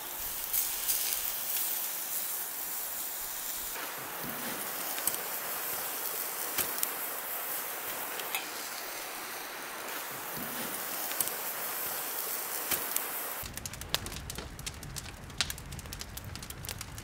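Shrimp and clams sizzling on a grill grate over charcoal: a steady hiss with scattered small pops. About thirteen seconds in it changes to a wood fire crackling in a fire pit, with frequent sharp pops over a low rumble.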